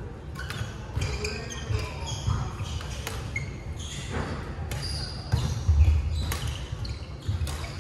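Badminton rallies on a wooden sports-hall floor: sharp racket strikes on the shuttlecock, shoes squeaking, and feet thudding as players move.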